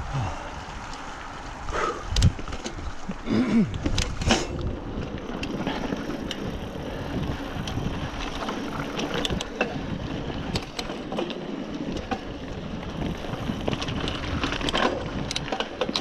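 Specialized Rockhopper hardtail mountain bike riding over a dirt trail: a steady rush of tyre and wind noise with frequent clicks and rattles from the bike over bumps. Several harder knocks come between about two and four seconds in.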